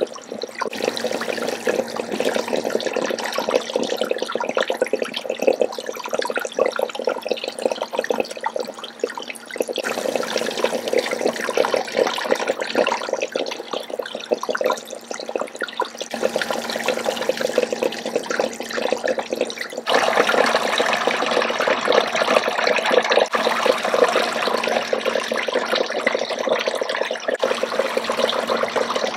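Running water splashing over hair at a head-spa wash basin, with the flow shifting about 10 and 16 seconds in and getting louder about 20 seconds in.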